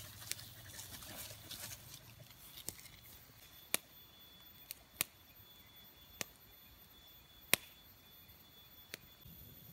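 A dog shifting about in grass, with faint rustling in the first two seconds, then a series of sharp single clicks or snaps, about eight of them at irregular spacing. A faint steady high tone runs underneath from about three seconds in.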